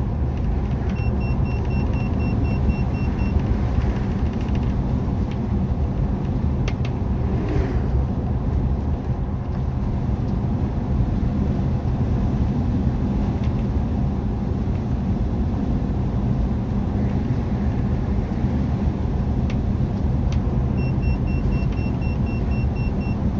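Steady engine and road rumble inside the cab of a converted-bus motorhome on the move. A short run of rapid high beeps sounds about a second in and again near the end.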